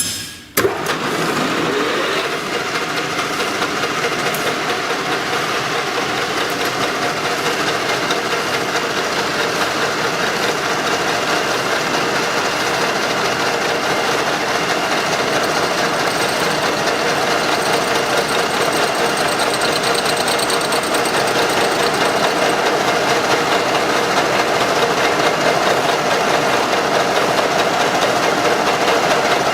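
Car engine starting about half a second in, then running steadily at idle.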